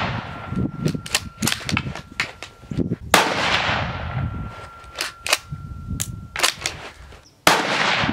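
Two shots from a .223-calibre CZ 600 Trail bolt-action rifle, about four seconds apart, the first about three seconds in and the second near the end, each followed by a fading echo. Lighter sharp clicks and knocks come between the shots.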